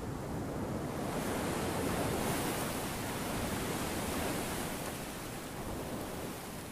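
Sea surf breaking and washing over rocks, a rush of noise that swells about a second in and slowly ebbs away.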